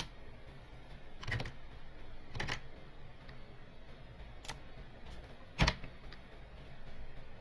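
A few separate computer keyboard keystrokes, four clicks spread over several seconds with the loudest a little past the middle.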